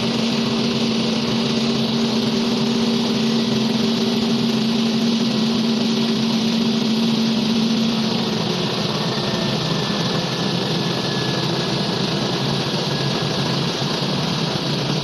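Fidelity LUY310-25 air compressor running steadily under test. It has a strong hum over a wide hiss, and the hum fades about eight seconds in while the running sound carries on slightly quieter.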